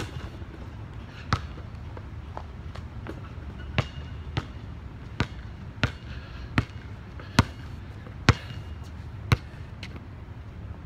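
A basketball being dribbled: about a dozen sharp bounces, roughly one every second or a little faster, over a steady low rumble.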